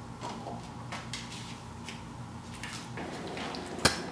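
Light clinks and knocks of things being moved about in an open refrigerator as a pit bull works at it for a bottle, with one sharp knock near the end, over a steady low hum.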